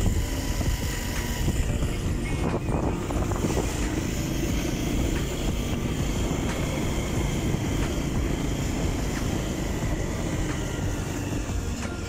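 Motorcycle engine running steadily while being ridden, with a continuous low rumble.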